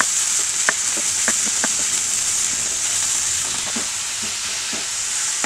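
Chopped vegetables sizzling in hot oil in a nonstick pan over a high flame, stirred with a wooden spatula. The steady sizzle is broken by scattered taps and scrapes of the spatula against the pan.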